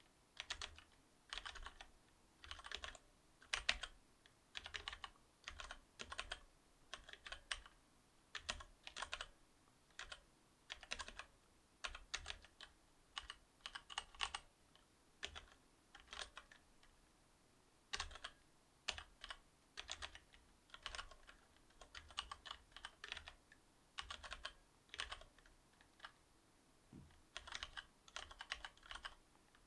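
Typing on a Cherry MX Board 8.0 mechanical keyboard with Cherry MX Silver linear switches: quick runs of keystrokes in bursts, with short pauses between them.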